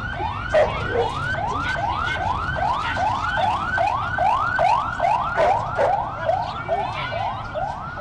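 Electronic siren wailing in a fast yelp, one rising sweep after another about three times a second. It fades slightly near the end.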